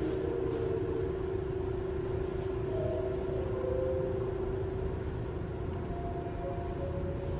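R62-series New York subway train standing at the platform: a steady low rumble under a constant hum, with a couple of brief faint tones partway through.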